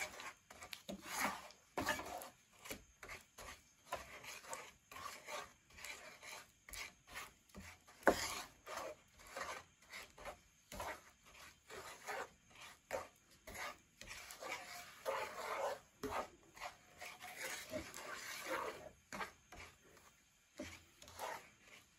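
Wooden spatula scraping and stirring lumpy, half-melted white sugar in a nonstick pan, in short irregular rasping strokes, one sharper than the rest about eight seconds in.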